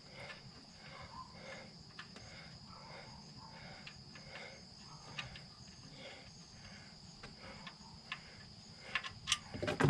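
Faint, steady high-pitched chirring of insects, with a low background hiss. A few quiet clicks and knocks come near the end.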